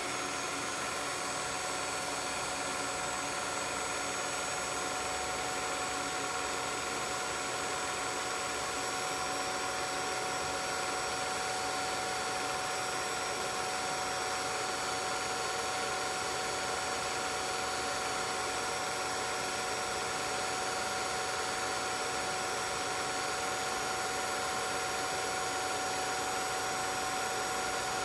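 16mm film projector running steadily: an even hum and hiss with several steady tones.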